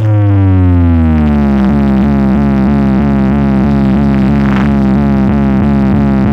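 Electronic synth tone played loud through a DJ bass-and-mid speaker box setup: a buzzy tone slides down in pitch over the first second or so, then holds steady, pulsing about three times a second.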